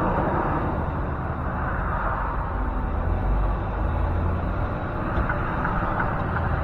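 Semi-truck engine running steadily with road noise, heard from inside the cab.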